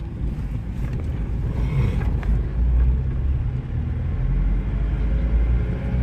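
Steady low rumble of a road vehicle's engine and tyres, heard from inside the vehicle as it drives along.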